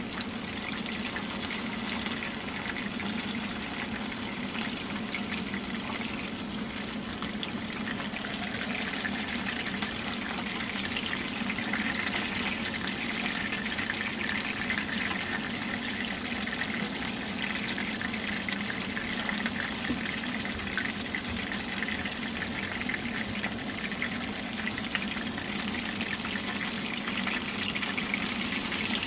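Karaage, starch-coated chicken pieces, shallow-frying in oil in a frying pan: a steady sizzle with fine crackling.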